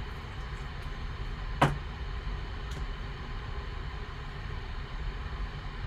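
Trading cards handled with gloved hands: one sharp click about one and a half seconds in and a lighter click about a second later, with a few faint ticks, over a steady low room hum.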